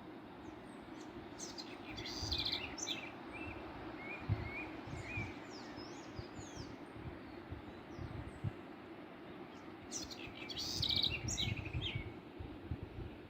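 Songbirds singing in two lively bursts of quick notes, one a couple of seconds in and one near the end, with scattered short chirps between, over the steady rush of a waterfall.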